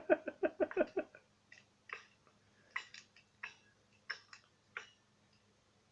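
A person laughs in a quick run for about a second. Then come scattered sharp pops and crackles of burning wood in a bonfire, a dozen or so, spaced unevenly.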